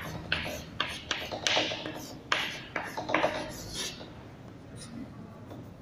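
Chalk writing on a chalkboard: a quick run of short scratching strokes and taps as a word is written, dying away after about three and a half seconds.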